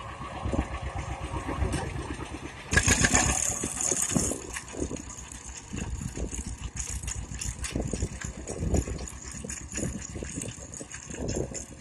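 John Deere 60 tractor's two-cylinder engine running under load with an even, rapid popping beat as it pulls a working grain binder, the binder's mechanism rattling along. A loud rushing hiss cuts in about three seconds in and lasts over a second.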